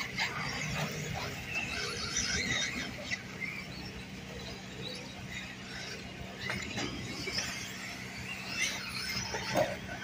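Radio-controlled off-road truck driving around a dirt track, its motor whining and scratchy tyre noise coming and going as the throttle comes on and off, loudest just before the end.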